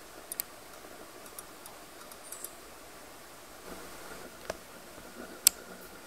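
Faint steady hiss with a few scattered sharp ticks, the loudest about five and a half seconds in.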